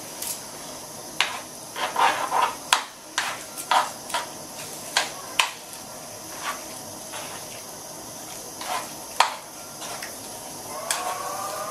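Metal spoon stirring a chicken and olive filling in a creamy sauce in a frying pan, with irregular knocks and scrapes against the pan over a steady hiss. Music starts near the end.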